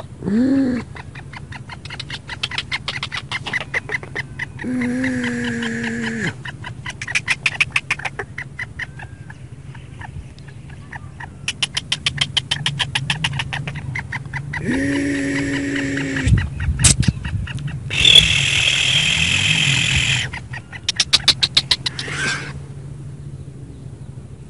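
Black francolin calling repeatedly: loud, harsh calls made of rapid rattling clicks, several bouts in a row, over a low steady hum.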